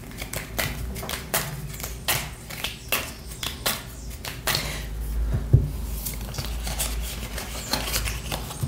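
A new deck of cigano fortune-telling cards being shuffled by hand: a quick, irregular run of sharp card snaps and clicks, with one dull knock on the table about five and a half seconds in.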